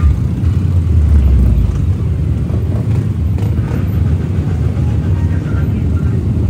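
Many trail motorcycle engines running together, a steady low rumble that swells briefly about a second in.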